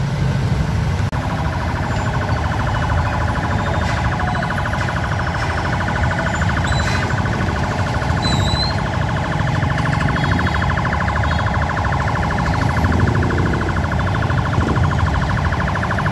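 A rapidly pulsing electronic siren tone runs over the low rumble of engines in slow traffic, building from about two seconds in.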